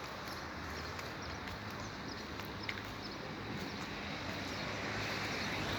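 Outdoor ambience: a steady hiss with scattered faint clicks, swelling louder near the end.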